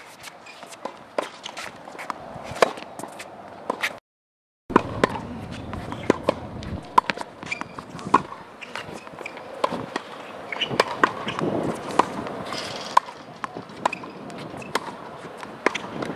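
Tennis racket striking tennis balls in a volley drill, a sharp pop every second or so, with ball bounces and footfalls on a hard court between. The sound cuts out briefly about four seconds in.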